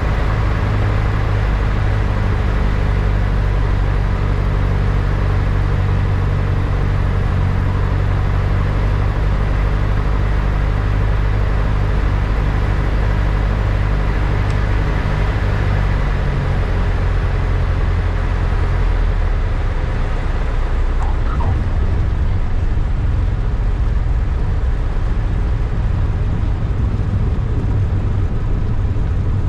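Single-engine piston airplane's engine and propeller droning steadily through the cockpit at low landing power, through final approach, touchdown and the landing roll; the engine note shifts a little past halfway.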